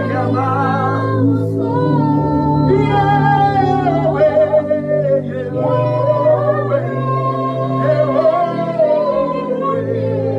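Worship singing: a voice sings a slow, wavering melody with no clear words over steady held low chords.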